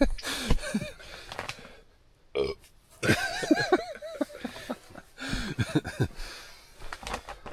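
A man's voice making wordless vocal sounds in several bursts, with pitch sliding up and down: one at the start, a longer one about three seconds in, and another about five seconds in.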